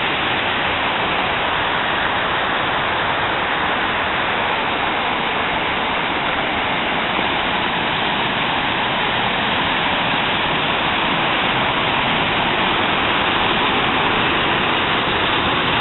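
Loud, steady rush of a waterfall: whitewater pouring and churning over broad rock ledges, an even noise with no breaks.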